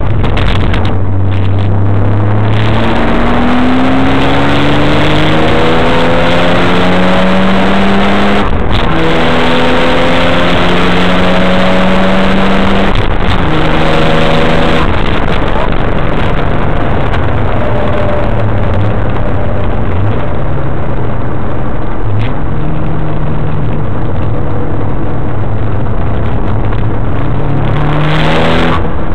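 Mitsubishi Lancer Evolution wagon's engine accelerating hard on track, pitch climbing and dropping back at several upshifts in the first half, a steadier stretch mid-way, then climbing again near the end. Heavy wind and road noise over it.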